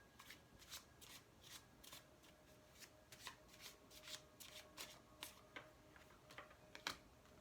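Tarot cards being shuffled by hand: a faint, uneven run of soft card snaps and flicks, about two or three a second.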